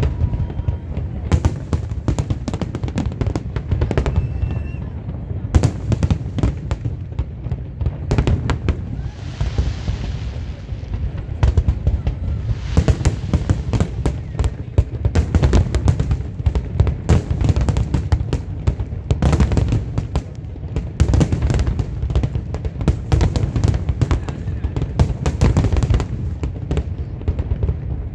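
Fireworks display: a continuous barrage of aerial shells bursting, with rapid sharp bangs over a deep rolling rumble. A hiss rises about nine seconds in and fades by eleven.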